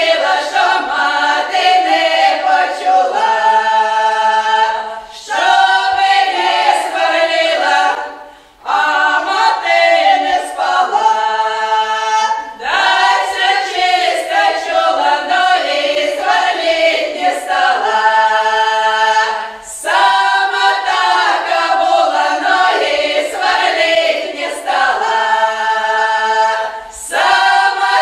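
Women's folk ensemble singing a Belgorod-region village song a cappella in several parts. Each phrase of several seconds ends on a long held chord, with brief breaks between phrases.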